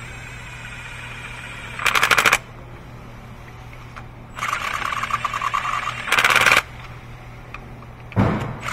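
Milwaukee FUEL brushless cordless gun on an extension, running new spark plugs down with its trigger feathered, in three bursts of rapid clatter: a short one about two seconds in, a longer one that starts softer and gets louder, and a brief one near the end.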